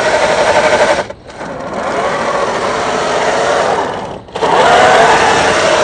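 Axial SCX10 III RC crawler's electric motor and gearbox whining under throttle, the pitch wavering with load. The whine drops out briefly twice, about a second in and again near four seconds, as the throttle is let off, then picks up again.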